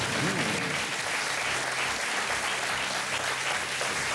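Studio audience applauding steadily after a correct answer is confirmed.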